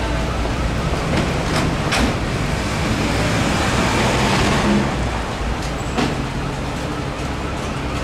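City street traffic: vehicle engines running with a steady low hum and road noise, and a couple of short knocks.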